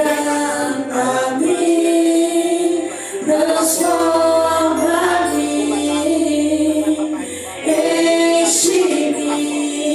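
Worship song sung with long held notes over instrumental accompaniment, with a low bass note under the middle of the passage.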